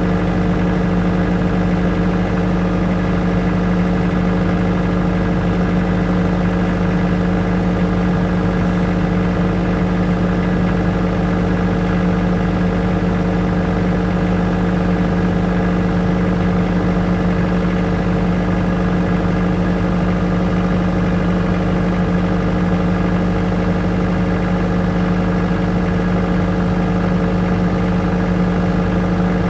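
Engine-driven generator running steadily at constant speed, a continuous even engine hum with no change in pitch or level.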